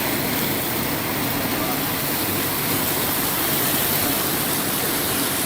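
Steady rushing noise of fast-flowing floodwater.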